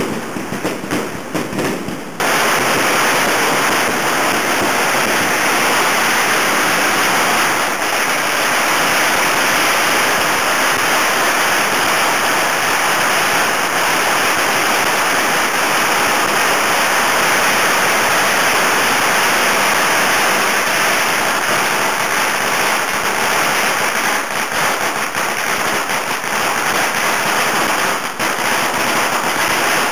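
Firecrackers going off: a few separate bangs, then about two seconds in a dense, continuous crackle of rapid-fire reports starts suddenly and goes on without a break, like a long firecracker string burning through, thinning a little near the end.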